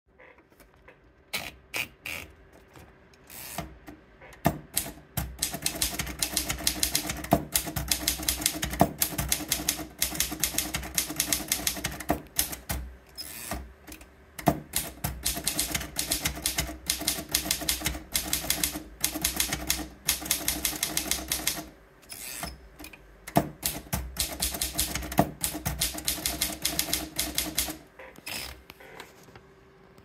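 Royal Portable Model A manual typewriter being typed on: three long runs of rapid key strikes, the typebars clacking against the platen, with short pauses between them where a new line is started. A few scattered clicks come first as the paper is fed in.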